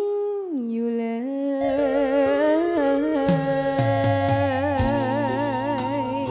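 A girl singing a Thai luk thung song, holding one long note that drops in pitch about half a second in and then wavers with vibrato. Backing music comes in under her voice about a second and a half in, with bass joining a little after three seconds.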